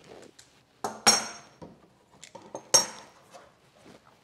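Two sharp metallic clinks with a short ring, about a second in and again near three seconds, with a few light ticks between: small metal hardware or tools handled on a wooden workbench.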